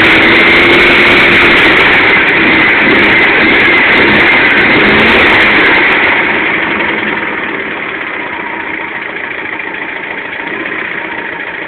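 Volkswagen Fusca's air-cooled flat-four running through a new Puma-style exhaust: held at raised revs for the first half, then easing back to idle.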